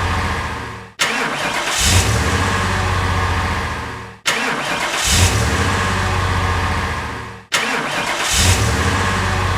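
Car engine starting, then fading out, the same short clip repeating about every three and a quarter seconds. It starts three times: about a second in, near the middle, and near the end.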